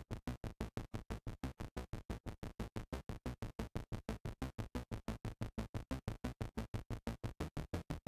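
Behringer MS-101 analog monophonic synthesizer playing a fast repeating pattern of short, staccato bass-heavy notes, about six or seven a second. Its source mixer sliders are being moved as it plays.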